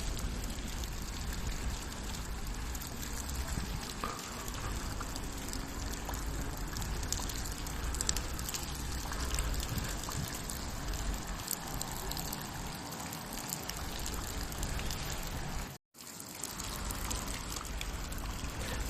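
Steady rain falling, with water trickling and dripping and faint scattered ticks of drops. It cuts out for a moment about sixteen seconds in, then carries on.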